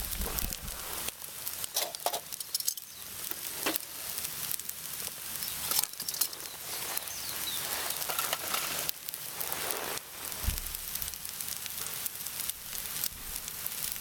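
Fried rice sizzling and crackling in a small Trangia mini frying pan over a charcoal fire, with a dull knock about ten and a half seconds in.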